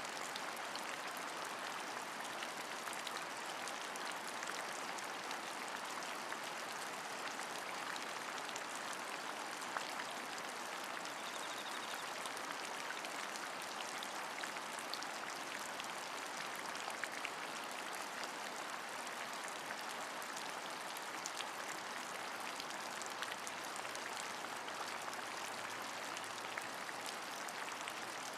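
Steady rain, an even hiss with scattered sharp drop ticks.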